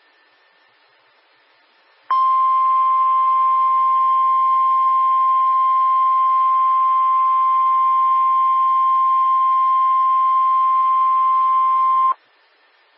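NOAA Weather Radio 1050 Hz warning alarm tone: a single steady, loud tone that cuts in sharply about two seconds in, holds for about ten seconds and stops abruptly. It signals that a warning is about to be broadcast, here a tornado warning.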